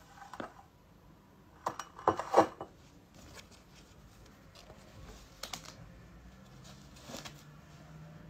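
A disposable face mask being handled: rustling and crinkling as it is pulled off a mug and unfolded, with a few sharp clicks and taps, the loudest cluster about two seconds in.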